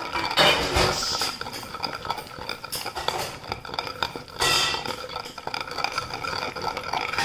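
Wooden pestle grinding wet tomato paste round a stone mortar (rolu), with irregular knocking and scraping of wood against stone. The paste is being turned and ground, not pounded. Louder stretches come about half a second in and again about four and a half seconds in.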